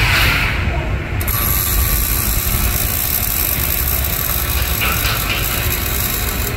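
Steady auto repair shop noise: a low rumble and a constant high hiss, with some faint mechanical clicking.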